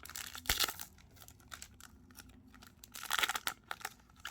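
Plastic wrapper of a baseball card pack being torn open and crinkled, with a louder rip about half a second in and another crinkling burst about three seconds in.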